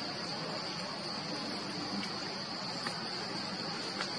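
Forest insects buzzing steadily at one high pitch, with two faint ticks in the second half.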